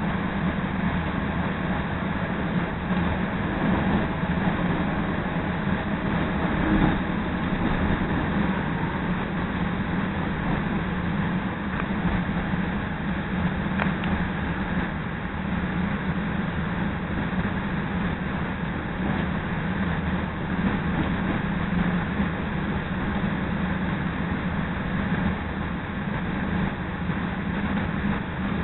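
Chicago CTA Red Line rapid-transit car in motion, heard from inside: a steady rumble of wheels on rail with a low running hum.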